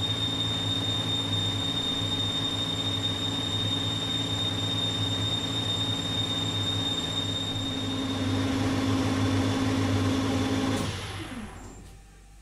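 Weiler Matador lathe running at 1800 rpm on a turning pass, with a steady high whistle from the tool in the cut over the hum of the motor and spindle. About eleven seconds in it is switched off, and the motor and spindle wind down.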